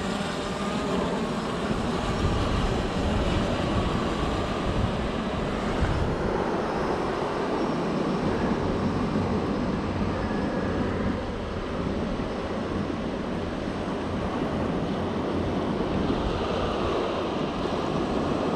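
Steady rush of breaking surf and wind buffeting the microphone, with the faint high whine of a DJI quadcopter drone's propellers as it flies out over the water.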